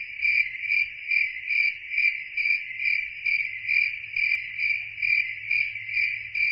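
Cricket chirping: one steady high-pitched trill pulsing evenly, a little over twice a second.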